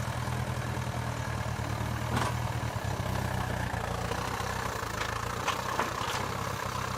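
A motor running steadily at a low, even pitch, with a few brief knocks over it.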